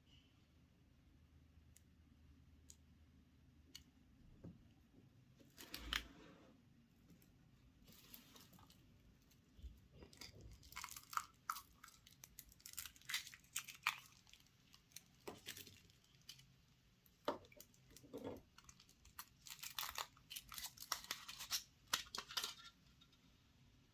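Foil wrapper of a chocolate surprise egg being torn and crinkled by hand. It comes in short, irregular bursts: one about six seconds in, then many close together through the second half.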